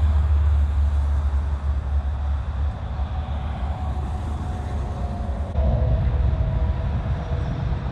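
A heavy vehicle engine running with a deep, pulsing rumble, with a faint steady whine above it. The rumble shifts about five and a half seconds in.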